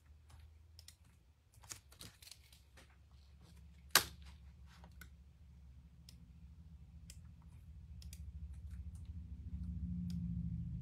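Computer keyboard typing and clicking in scattered strokes, with one sharper click about four seconds in. A low hum underneath grows louder through the second half.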